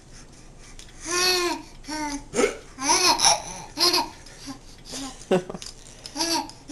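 Baby laughing in a string of short, high-pitched bursts, the first and longest about a second in, then roughly one or two a second.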